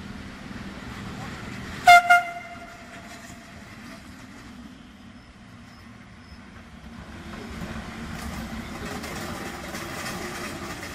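FS E655 electric locomotive sounding its horn in two short toots about two seconds in. From about seven seconds on comes the rumble and hiss of the locomotive rolling past close by, growing louder.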